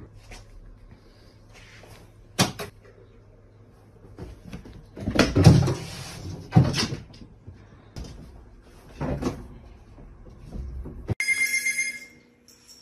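A series of separate knocks and thumps, a few seconds apart. About a second and a half before the end a steady electronic ringing tone, like a phone ringtone, starts suddenly and holds.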